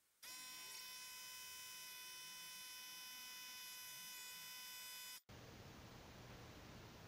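A faint, steady buzzing hum with a stack of even overtones, starting a moment in and cutting off abruptly about five seconds in.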